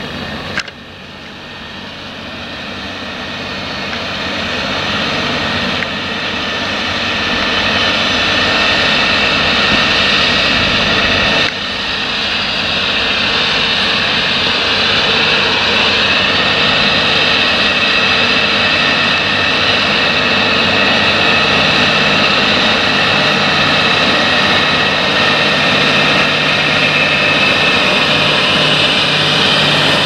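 John Deere 8360RT rubber-tracked tractor's diesel engine running steadily under heavy load, pulling an eight-furrow Gregoire Besson reversible plough through heavy land. The sound grows louder over the first several seconds, then holds steady.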